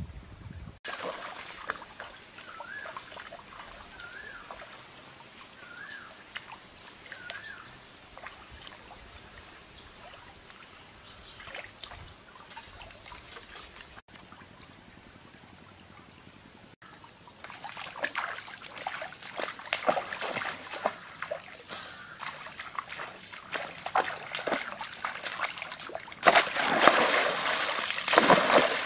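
Water splashing and trickling in a shallow stream, picking up in the second half and loudest near the end. Birds call throughout: a wavering whistled call early on, then a short high chirp repeated about once a second.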